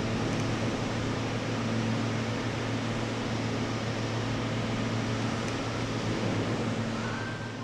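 Electric machine-tool spindle running steadily with a constant low hum and whir, fading away near the end.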